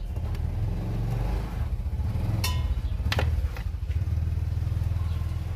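A low, steady motor rumble, like a motorcycle or other engine running, with a few sharp clicks of a small screwdriver and tweezers against a phone's metal midframe, the clearest about two and a half and three seconds in.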